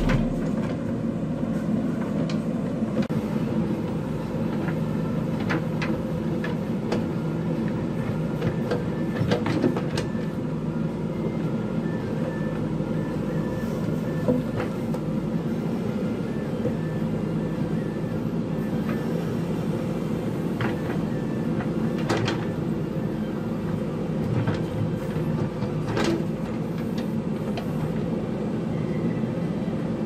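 JCB backhoe loader's diesel engine running steadily under load as the backhoe arm digs, with a few sharp knocks and clatters of the bucket against the rocky soil.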